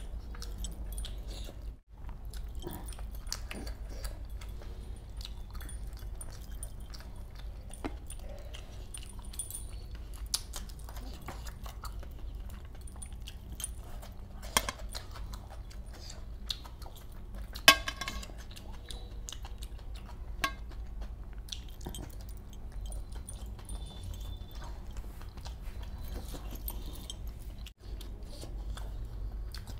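Close-miked eating sounds: a man chewing and smacking his mouth on fish masala while his fingers pick the flesh off a whole fish. Scattered small wet clicks and ticks run over a steady low hum, with one sharper click a little past the middle.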